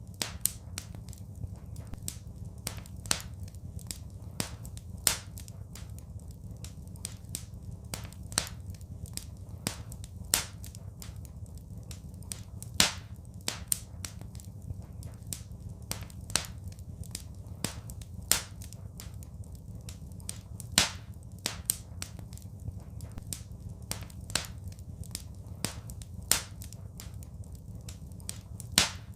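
Wood fire crackling in a fireplace: irregular sharp snaps and pops, a few of them louder, over a steady low rumble.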